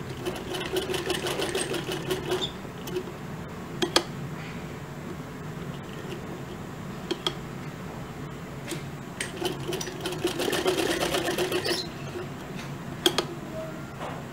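MIECO straight-stitch sewing machine stitching a seam: two spells of fast, even ticking, near the start and about two-thirds in, with slower running between them. A few sharp clicks stand out, about four seconds in and near the end.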